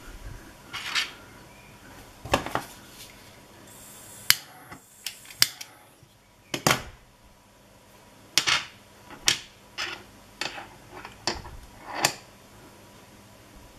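Sharp clicks and knocks of small metal parts being handled and set down on a metal stand, about a dozen separate taps at irregular intervals.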